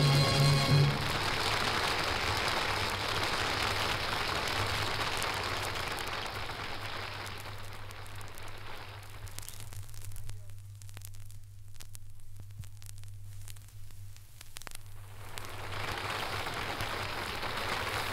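Studio audience applause heard through the surface noise of an old acetate disc. It starts as the music ends about a second in and dies away over several seconds. A few seconds of disc crackle and a steady low hum follow, then the applause rises again near the end.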